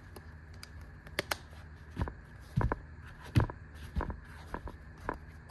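Hand tools being handled and fitted into a small tool pouch: a string of about eight light knocks and clicks, the loudest a little past the middle.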